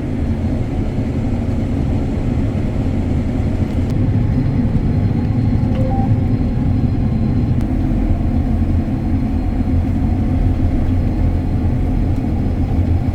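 Combine harvester running steadily while harvesting wheat, a loud and even mostly low-pitched machine noise.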